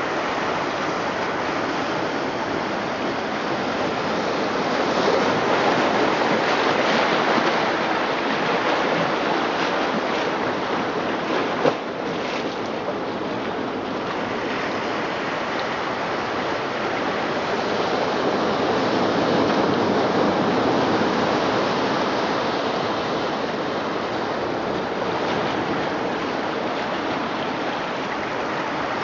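Recorded ocean surf played through loudspeakers built into the sculpture, a steady rush of waves that swells and ebbs slowly. There is one brief click about twelve seconds in.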